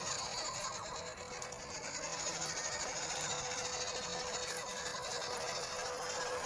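Electric motor and gearbox whine of a 1/12-scale RC crawler climbing a grassy dirt trail: a steady tone that grows stronger in the second half as the truck comes closer, over a steady high hiss.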